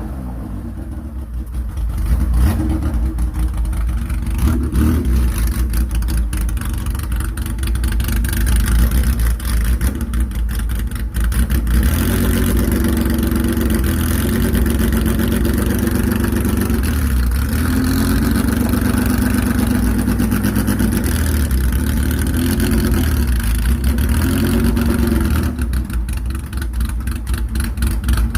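Porsche 911 SC rally car's air-cooled flat-six engine running hard. It gets louder about two seconds in, then revs up and down again and again as it accelerates through the gears.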